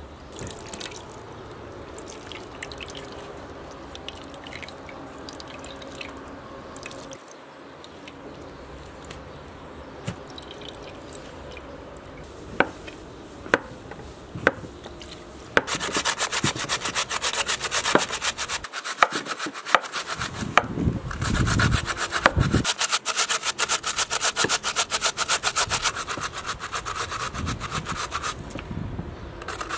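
Raw potato grated on a handheld metal grater: rapid rasping strokes, quiet at first with a few sharp knocks, then much louder and dense from about halfway.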